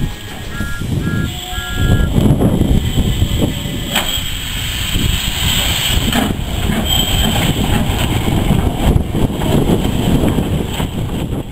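Steam tank locomotive, an 0-6-0 dressed as Thomas the Tank Engine, moving slowly past with a loud, uneven low rumble and a hiss of steam. Three short high beeps sound about a second in.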